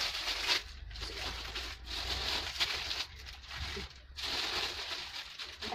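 Plastic bags and wrappers crinkling and rustling in several short bouts, with brief pauses, as packed items are handled and stacked on a shelf.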